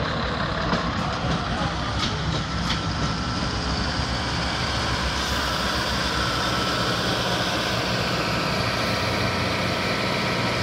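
Philippine National Railways diesel multiple unit's engine running steadily as the train draws up at the platform and stands, with a couple of short clicks early on and a high thin whine joining about halfway.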